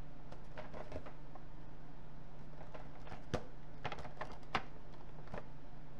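Scattered light clicks and knocks of a cardboard figure box being turned over and handled, the sharpest about three and a half and four and a half seconds in, over a steady low hum.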